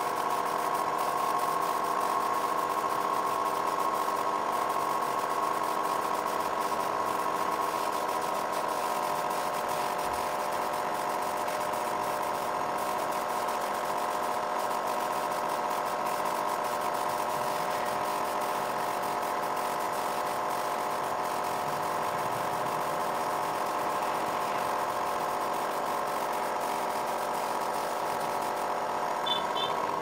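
Air compressor running with a steady, even hum, supplying air to a paint spray gun.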